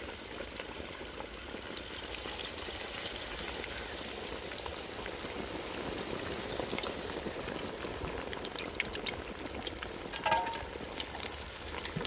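Chicken leg pieces deep-frying in very hot oil: a steady bubbling sizzle with fine crackles throughout. A brief pitched sound about ten seconds in.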